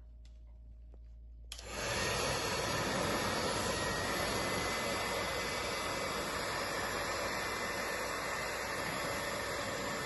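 A hand-held hair dryer is switched on about a second and a half in and then blows steadily, warming the rubber gasket of a fridge door to reshape a seal that no longer closes properly.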